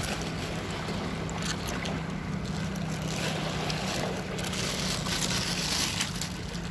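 A steady low hum over surf and wind noise on the microphone, with a few short, sharp rustles and clicks as a plastic bag of gathered sea urchins and shells is handled.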